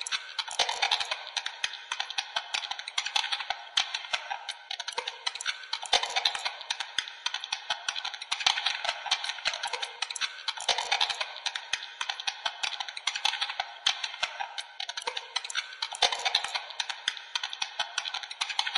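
Dense, rapid crackling and clicking, like fast keyboard tapping, with a fuller swell coming back about every five seconds.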